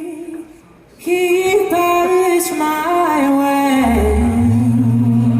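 A cappella vocal group singing a wordless held harmony, the voices dropping away briefly and re-entering about a second in; a deep bass voice comes in underneath with a low sustained note around four seconds in.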